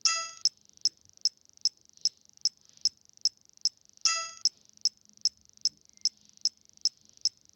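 Ticking sound effect: short, high-pitched clicks at a steady two and a half per second, with a bell-like ding that rings and fades at the start and again about four seconds in.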